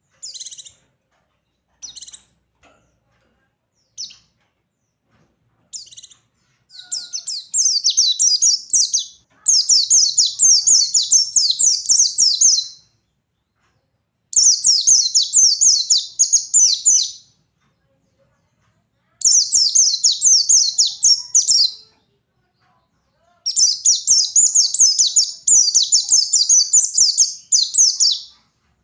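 White-eye (pleci) calling. It gives a few short chirps, then four long bouts of rapid, high-pitched twittering song, each several seconds long, with short pauses between them.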